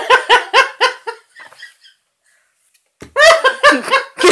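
A person laughing in two bouts of quick, pitched 'ha-ha' pulses, about four a second: one at the start lasting about a second, and another from about three seconds in.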